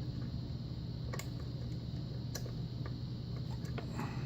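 Lock pick working the pin stacks of an old 6-pin Russwin pin-tumbler lock: a few sharp, light clicks, about a second apart, then smaller ticks near the end, over a steady low hum.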